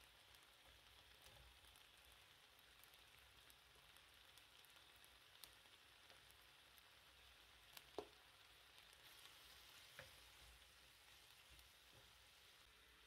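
Faint sizzling of speck strips cooking in oil and water in a non-stick frying pan, with a few sharp clicks, the loudest about eight seconds in.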